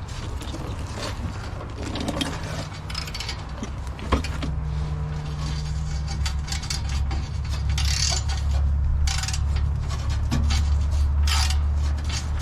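Wrench work on a truck's rusted exhaust bolts: repeated metal clicks, scrapes and rubbing of the tool on the fittings, over a steady low hum.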